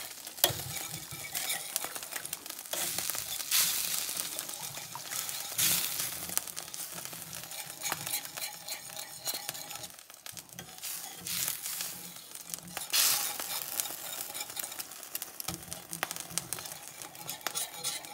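A wire whisk stirring thin flour-and-water gravy in a stainless steel skillet, with wet sloshing and the wires scraping and clinking against the pan in irregular strokes, over a steady sizzle from the heated pan.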